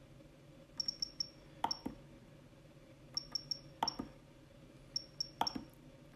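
Jeti DC-24 transmitter's short high key beeps as its menu is navigated: three runs of about three quick beeps, each run ending in a click of a key press with another beep.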